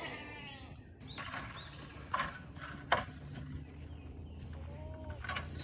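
Goats bleating, one wavering call at the start and fainter ones later, with a few sharp knocks and footfalls in between.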